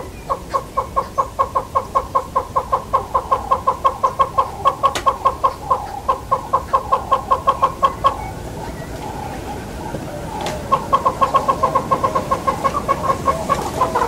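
Southern yellow-billed hornbill calling: a long run of rapid clucking notes, about five a second, that stops about eight seconds in, then a second run starting about three seconds later.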